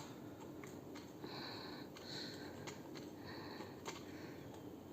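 Quartz wall clock movement ticking faintly, about one tick a second as the second hand steps.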